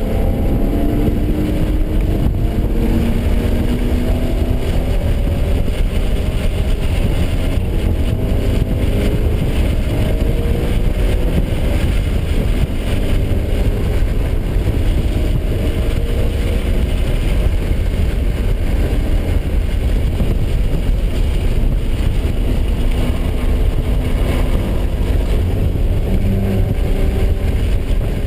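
BMW engine heard from inside the cabin at track speed, its revs rising and falling through the gears over steady wind and road noise.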